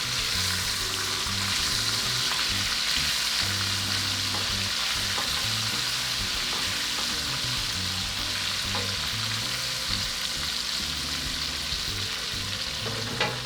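Flour-coated chicken tenders frying in a shallow pan of hot oil: a steady sizzle, with a sharp tap near the end.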